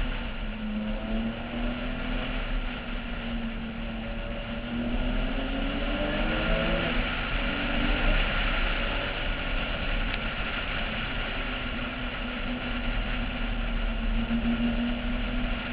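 Porsche 996's flat-six engine running at speed on a race track, heard from a camera on its roof under heavy wind rush; the engine note drifts up and down in pitch as the revs change.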